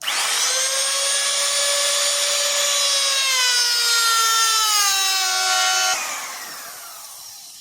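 Small hand-held router with a dovetail bit running with a high whine; about three seconds in its pitch sags as the bit cuts into the wood, widening a dovetail groove. About six seconds in it is switched off and winds down.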